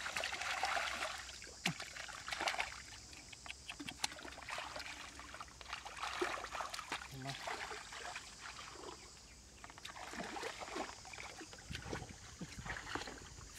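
Hands and forearms squelching and sloshing through thick wet mud and shallow muddy water, with irregular wet splashes and sucking clicks as the mud is dug and scooped by hand while feeling for catfish. A steady high hiss runs underneath.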